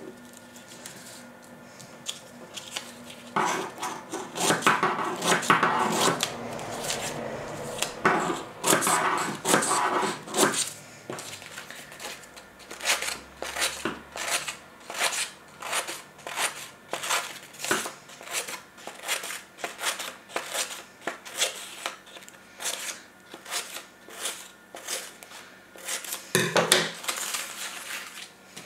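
Scissors snipping short cuts into the edge of a card circle, a steady run of sharp snips at about two a second.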